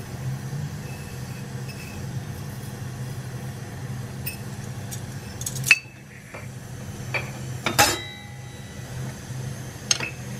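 Metal kitchen utensils clinking a few separate times over a steady low hum; the loudest clink, past the middle, rings on briefly like struck steel.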